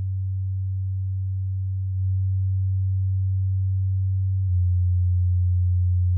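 Low sine-wave bass test tone, around 100 Hz, played through a 5-inch studio monitor and recorded in the room. The tone holds steady, then steps to a new pitch and a little louder twice, about two seconds in and again near four and a half seconds.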